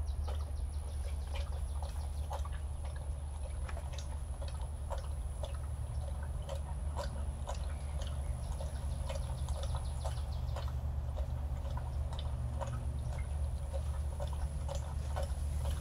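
A dog lapping milk from a stainless steel bowl: a steady run of quick wet laps and tongue clicks, over a constant low hum.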